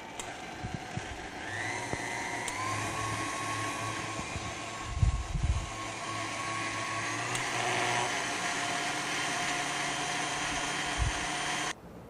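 KitchenAid Artisan stand mixer running at low speed, its balloon whisk beating a soft cream-cheese mixture in a glass bowl: a steady motor whine that rises slightly in pitch about a second and a half in. The sound cuts off suddenly near the end.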